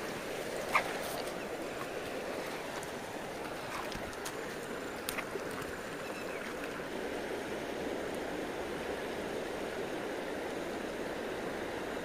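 Steady rushing of a wide, fast-flowing river, with a couple of faint knocks about a second in and about five seconds in.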